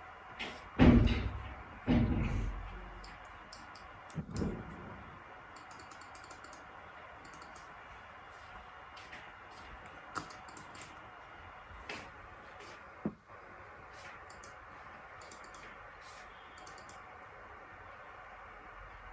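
Three heavy thuds in the first few seconds, then scattered light clicks and taps.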